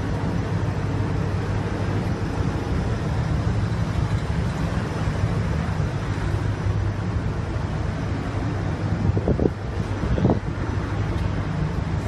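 Automatic car wash machine running: a steady low mechanical hum over a rushing hiss, with two short louder sounds near the end.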